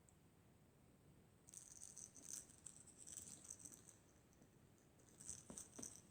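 Kong Crackles Gulpz fish dog toy crackling faintly in two spells of crisp crunching, the first about a second and a half in, the second near the end with a few soft knocks.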